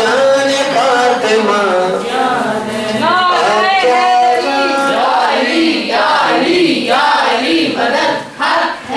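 A man chanting Urdu devotional verse in a melodic, sung style, with held, gliding notes and a brief pause near the end.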